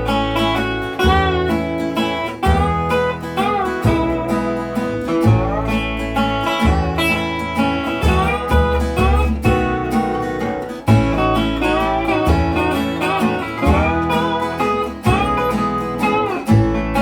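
Instrumental intro of a country-blues song: acoustic guitar strumming under a steel or slide guitar playing gliding, bending notes, over a steady bass line and beat.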